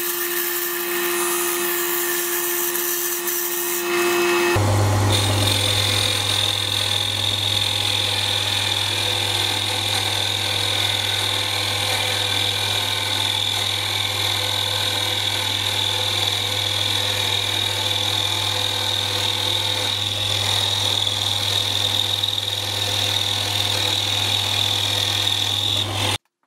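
Mini metal lathe running steadily, turning a wooden casting pattern against a high-speed steel cutting tool. About four and a half seconds in the sound changes abruptly to a lower hum with a steady high whine, which cuts off just before the end.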